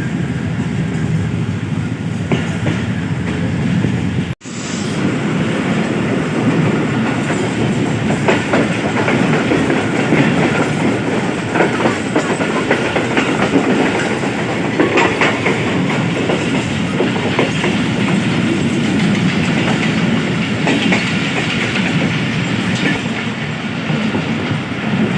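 Passenger train running fast, heard from on board: a steady rumble of the carriage with wheels clattering over rail joints and points. The sound drops out for an instant about four seconds in.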